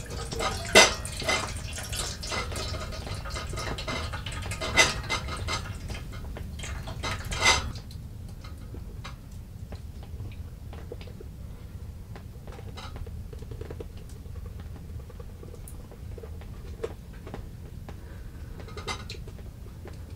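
Metal spoon scraping and clinking against a titanium camp pot as thick stew is spooned out of a silicone bag into it, with three sharper knocks during the first eight seconds. After that only a few faint ticks are heard.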